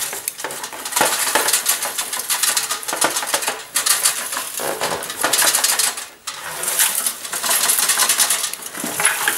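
An electric toaster being shaken upside down, loose crumbs and its metal innards rattling and clattering in bursts, with a brief pause about six seconds in. The shaking is to clear a build-up of crumbs that keeps the lever from latching down.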